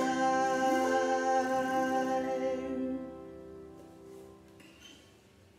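Final chord of a song: a woman's held sung note over a strummed autoharp. The voice ends about three seconds in and the autoharp strings ring on, dying away slowly to near silence.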